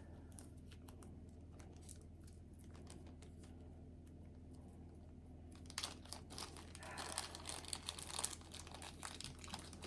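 Faint crinkling and rustling, like something being handled or crumpled, starting a little past halfway and continuing in irregular crackles over a low steady hum.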